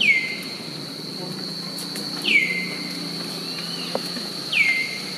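A bird calling three times, about two and a half seconds apart, each call a whistle that drops sharply and then holds briefly at a lower pitch. A steady high-pitched insect drone runs underneath.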